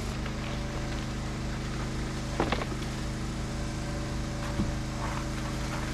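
An engine running steadily at an even idle, a constant low hum, with a couple of light knocks or clicks about two and a half and four and a half seconds in.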